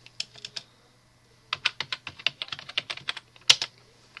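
Typing on a computer keyboard: a few scattered keystrokes, then a quick run of keystrokes, ending with one louder key strike about three and a half seconds in.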